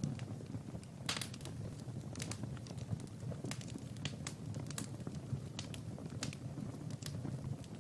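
Wood fire burning in a fireplace: a steady low rumble of flames with irregular sharp crackles and pops, the loudest about a second in.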